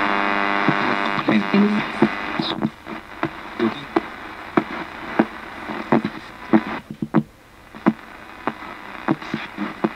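Ghost box: a portable radio sweeping the AM band, giving a steady buzz for the first two and a half seconds, then a string of short, chopped blips of static and station fragments as it skips from frequency to frequency.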